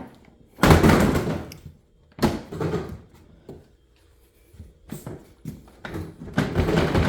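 Hard plastic Ryobi LINK modular tool boxes being handled and set onto a stack to latch together: clunks and scraping rattles, the loudest about half a second in and again near the end, with a few small knocks between.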